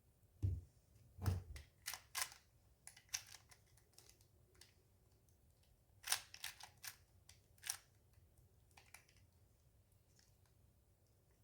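Clicks and clacks of a 3x3 speed cube being turned in quick bursts of moves, with two low knocks in the first second and a half.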